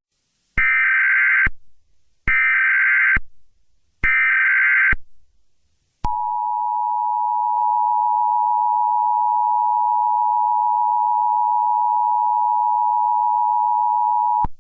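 Emergency Alert System tones. Three short bursts of harsh data tones (the SAME header) about a second apart are followed by the EAS two-tone attention signal, a steady dual tone held for about eight seconds, which announces an emergency alert message.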